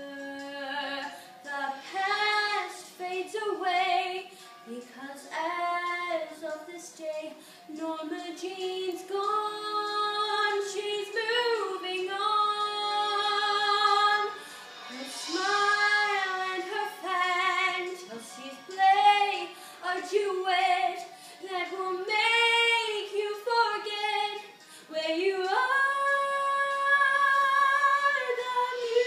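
A young girl singing solo, with sliding pitches and held notes, the longest held note near the end.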